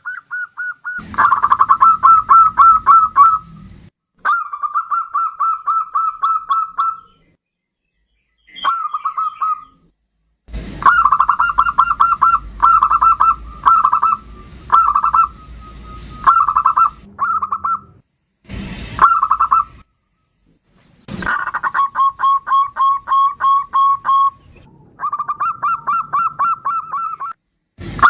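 Zebra dove (perkutut) singing: phrase after phrase of rapid pulsed cooing notes, each phrase lasting one to three seconds with short pauses between.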